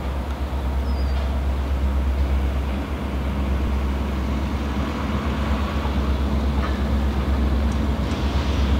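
BNSF freight diesel locomotive approaching at low speed, its engine giving a steady low rumble as it hauls a train of garbage container cars.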